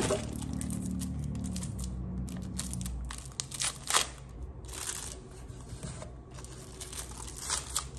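Packaging and small plastic containers being handled: crinkling and rustling with scattered clicks, a few sharper ones around four seconds in and again near the end.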